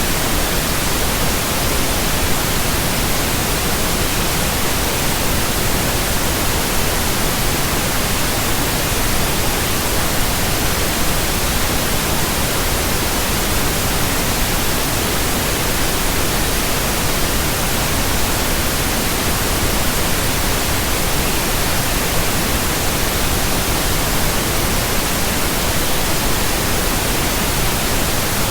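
Steady pink noise: an even, unbroken hiss spread across the whole range, with no changes.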